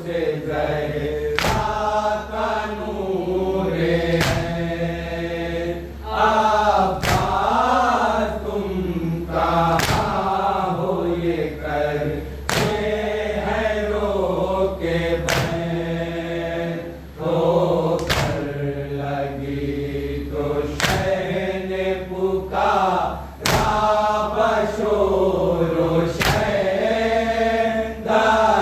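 A group of men chanting an Urdu noha (mourning lament) together. A sharp slap of matam, hands striking chests in unison, falls about every three seconds in time with the chant.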